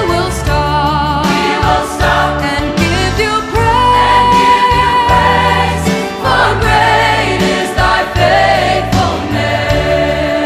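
Youth choir singing a worship song, led by a female soloist on a microphone, over steady low accompanying notes; the soloist holds one long note a little under halfway through.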